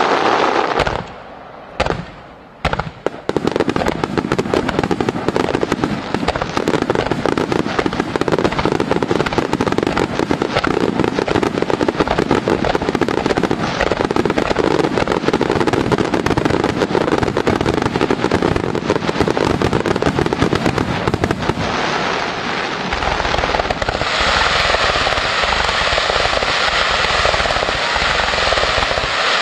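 Aerial fireworks shells bursting in a relentless rapid-fire barrage, the bangs running together into one continuous rumble. About a second in, the bursts thin to a few separate bangs for a moment, then close up again. Near the end the sound turns brighter and hissier.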